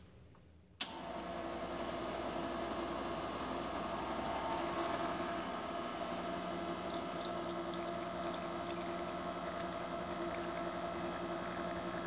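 Diletta Mio espresso machine switched on to brew with a click about a second in, then its vibratory pump running with a steady hum as a shot of espresso pours.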